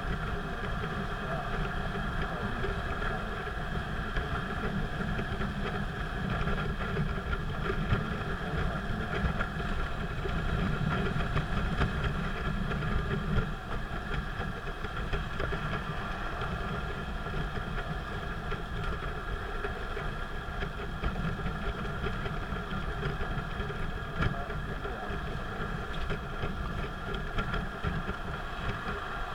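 A car driving steadily on an expressway: a continuous low rumble of engine and road noise with a steady hum above it, a little heavier during the first half.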